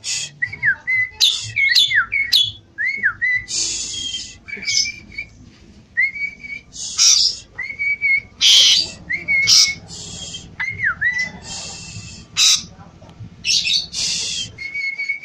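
Javan pied starling (jalak suren) singing in full voice: a run of clear whistles held near one pitch, many ending in quick downward swoops, broken up by harsh, raspy chatter bursts.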